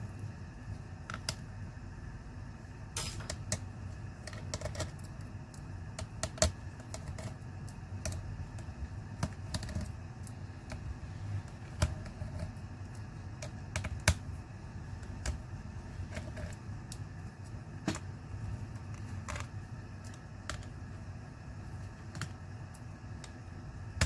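Scattered small clicks and taps of tools and parts being handled on a Dell Latitude 7390 laptop during disassembly, irregular and a few seconds apart at most, over a steady low hum.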